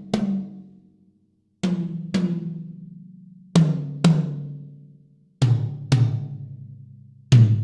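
Yamaha Stage Custom Birch toms on factory heads, each struck twice in a row and left to ring out. The player moves to a lower tom about every two seconds, so the notes step down in pitch.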